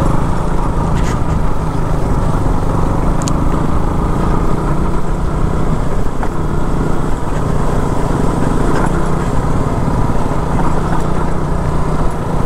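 KTM Duke 200's single-cylinder engine running steadily at low speed on a rough dirt road, with tyre and road noise. Two brief sharp clicks sound about one and three seconds in.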